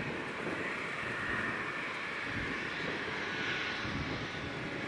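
Airbus A321neo airliner's jet engines at taxi power while it rolls along the taxiway: a steady rushing hum with a high whine in it.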